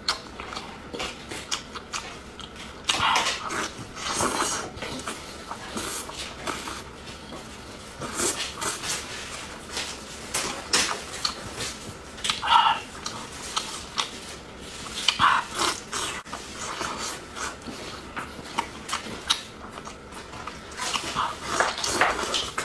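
Close-miked chewing of sauce-dipped tiger prawn meat: many wet lip-smacks and mouth clicks, coming in irregular clusters.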